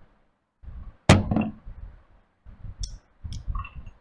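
A drinking glass knocks down onto the table about a second in, followed by a few light clinks.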